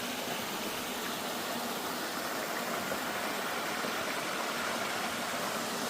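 Small cascading waterfall on a mountain creek, water rushing down in a steady, even hiss.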